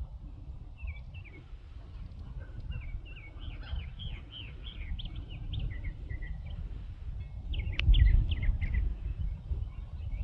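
Songbirds chirping and singing in quick runs of short falling notes, over a low rumble that swells briefly about eight seconds in, with a single click.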